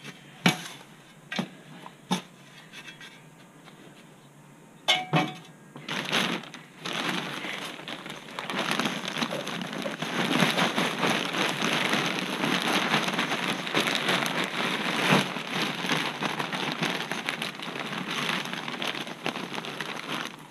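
Potting soil pouring from a plastic potting-soil bag, the bag crinkling and the soil rustling in a steady, crackly stream. A few sharp knocks and handling sounds of the bag come before the pour starts, about six seconds in.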